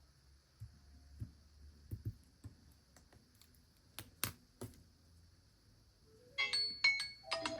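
A few faint taps and clicks, then about six seconds in a smartphone's ringtone or alarm tone starts: a melodic chime of bright mallet-like notes, getting louder.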